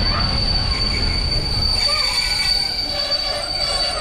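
PKP passenger coaches rolling past a platform, their running gear giving a steady high-pitched metal-on-metal squeal, with more squealing tones joining about halfway through, over the low rumble of the wheels on the rails.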